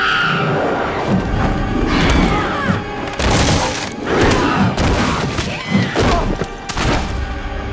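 Film action soundtrack: film score music under a woman's shriek, further screeches, and several sudden thuds and wood crashing, the crashes bunched about three seconds in and again near the end.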